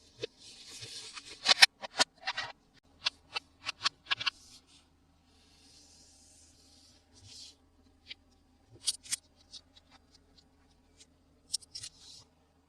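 Plastic toy packaging and toy parts being handled: a run of sharp clicks and taps, busiest in the first few seconds, with short rustling swishes in between. The loudest click comes about one and a half seconds in.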